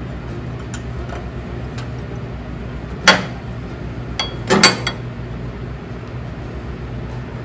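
Metal clinks from the John Deere 110's mower-deck mounting pin and its retaining hardware being secured: one sharp clink about three seconds in, then two more close together a second and a half later, over a steady low hum.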